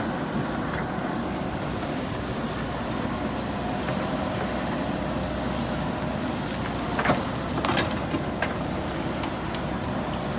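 JCB backhoe loader's diesel engine running steadily under work, with a few sharp knocks from the machine about seven to eight and a half seconds in.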